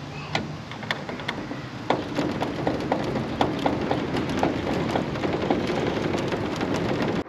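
A steady hiss with many small sharp ticks and taps scattered through it, which cuts off suddenly at the end.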